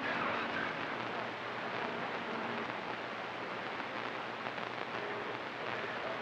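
CB radio receiver hiss between transmissions: a steady rush of band noise through the radio's speaker, with faint weak tones under it from distant signals.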